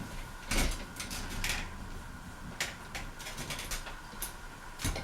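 Hunter Beacon Hill ceiling fan running with a steady faint hum, while the fan is switched to medium speed amid a series of irregular sharp clicks and knocks.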